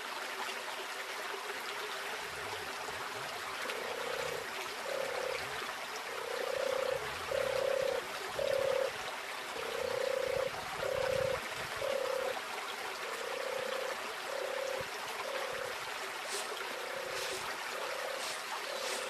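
Small waterfall splashing into a pool, with the creek running. From a few seconds in, a series of short low tones repeats in an uneven rhythm over the water.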